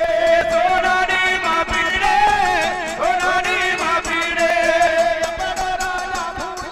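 Gujarati folk music: a wavering melodic lead line over a steady drum beat.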